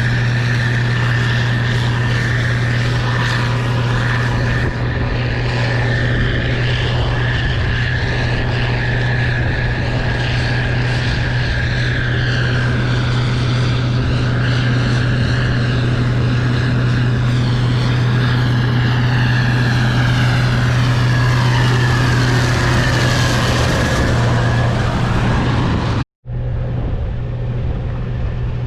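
Case IH 2388 Axial-Flow combine running steadily while harvesting soybeans: a deep diesel drone with a steady high whine over it. The sound cuts out for an instant near the end, then resumes.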